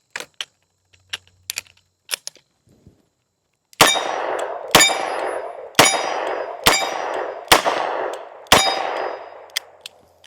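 Smith & Wesson 586 revolver fired six times, about a second apart, each shot trailing a long echo. A few light clicks come before the first shot.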